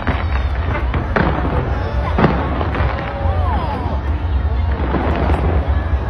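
Fireworks display going off: a dense run of cracks and bangs over a continuous low rumble. The loudest bangs come about a second and about two seconds in.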